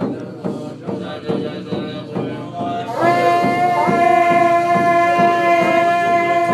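Buddhist monks' ceremonial music: chanting over a steady beat of percussion strikes. About three seconds in, a wind instrument joins with one loud, long held note.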